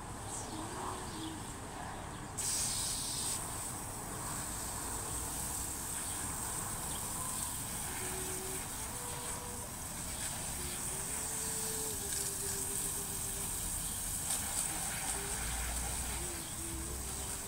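Garden hose spray nozzle opened about two seconds in, then a steady hiss of water jetting onto the wire mesh of a screen door.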